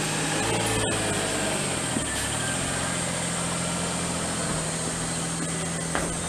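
An engine running steadily at idle, its pitch shifting for a moment between about one and two seconds in, then settling again.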